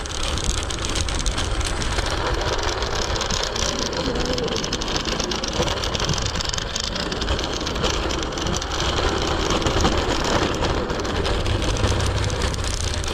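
Steady street and road noise during a ride on an electric scooter: a low rumble under a continuous hiss, from the tyres on the street and the surrounding car traffic.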